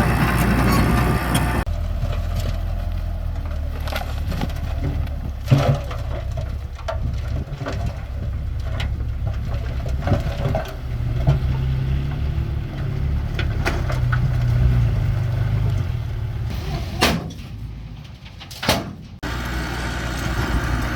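Heavy bulldozer diesel engine running steadily with a low rumble, broken by a few sharp knocks and clanks from the machine at work. The rumble dips briefly near the end.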